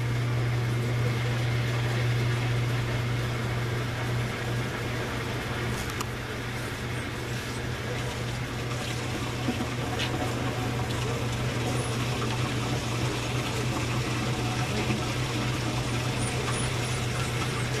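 Steady low hum with an even hiss over it, a motor running continuously, with a few faint clicks.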